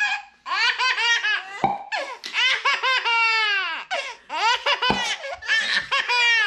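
Baby laughing hard in four long runs of high-pitched laughter, with two dull thumps in between.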